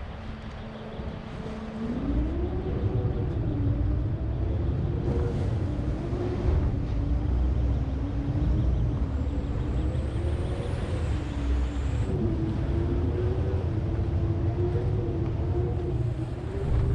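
A large engine idling, then speeding up about two seconds in and running on with a deep rumble and a pitch that wavers up and down.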